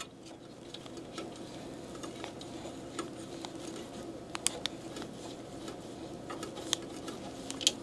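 Scattered light metallic clicks and ticks as long-nose pliers and fingers turn a small metal panel counterclockwise on a Datamax O'Neil I-Class Mark II label printer, working it loose. The clicks come more often from about three seconds in, over a faint steady hum.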